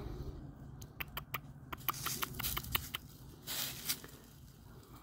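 Dry fallen leaves crackling underfoot in a quick run of small sharp clicks, then a short rustle of leaves a little later.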